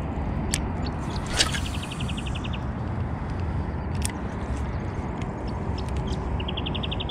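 Steady low rush of wind over the microphone on open water, with a few sharp clicks from handling the rod and spinning reel during a cast. Twice there is a short run of quick, high, evenly spaced ticks, about ten a second.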